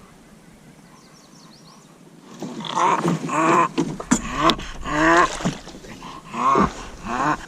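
Bulldog whining in a run of short, loud cries that bend in pitch, starting about two seconds in, worked up at a cat it has spotted.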